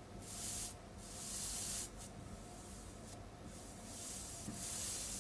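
Wet homemade lemon-juice-and-salt soldering paste sizzling on a hot soldering iron tip against a power transistor's metal case. It comes in five or six short hissing spurts, each under a second long.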